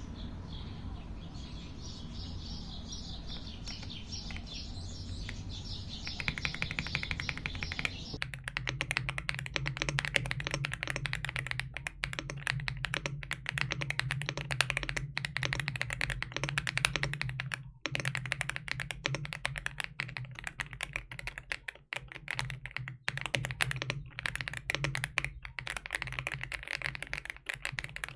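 Fast typing on an AULA F75 Max mechanical keyboard with pre-lubed switches and PBT keycaps: a dense, continuous run of keystroke clacks that begins about eight seconds in. Before that there is only steady background noise with some high chirping.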